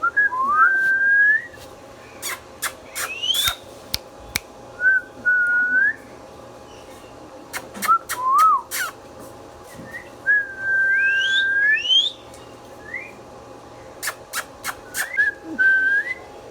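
Indian ringneck parakeet whistling: about five short whistled phrases, each swooping up and then holding a note, mixed with sharp clicks and quick rising squeaks.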